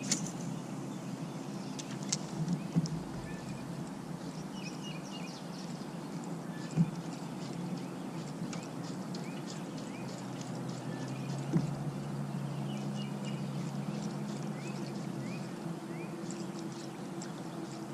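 River ambience heard from a kayak: a steady low hum of moving water, with short repeated bird chirps and a few sharp knocks against the boat.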